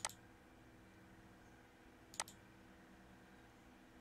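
Two single computer mouse clicks about two seconds apart, over a faint steady hum.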